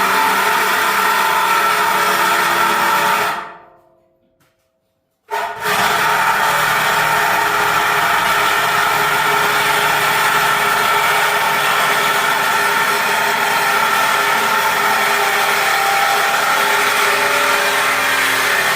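A power tool running steadily with a whining hiss. It fades out about three and a half seconds in, goes silent for about two seconds, then starts again abruptly and runs on.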